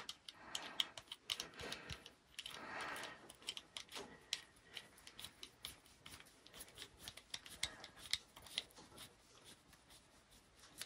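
Faint handling noise: small scattered clicks and soft rubbing as fingers fit a washer and nut onto a pin in the chrome ball joint of an iMac lamp arm.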